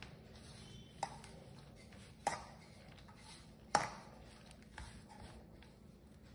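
Hands rubbing and squeezing crumbly maida dough in a stainless steel bowl, a soft rustling, with three sharp knocks against the bowl about a second and a half apart, the last the loudest.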